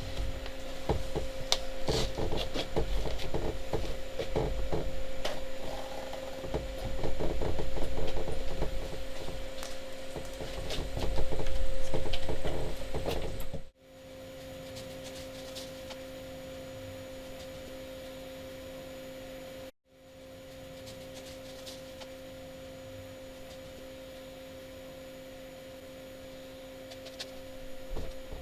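Hand work on the boat's fiberglass: irregular rubbing, knocking and handling noises over a steady electrical hum. About halfway the sound cuts off abruptly, and after that only the steady hum remains.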